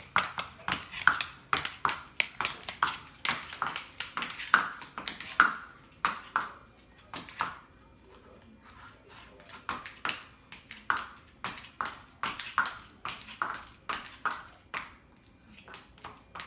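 A child's hard-soled dress-up shoes clicking and tapping on a hard floor as the child dances and stomps, about two or three sharp, slightly ringing clicks a second. The clicks pause briefly in the middle, then start again.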